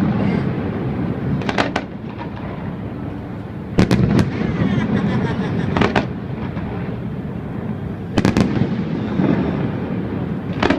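Fireworks display: sharp aerial shell bangs about every two seconds over a continuous low rumble and crackle of further bursts.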